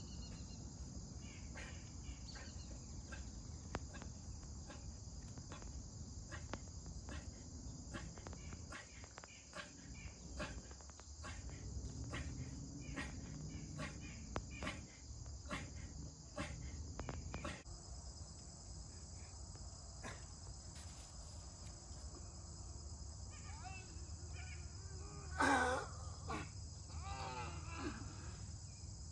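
Steady high-pitched drone of an insect chorus in the trees. Scattered light clicks and taps sound through the first half, and a brief loud pitched call comes near the end.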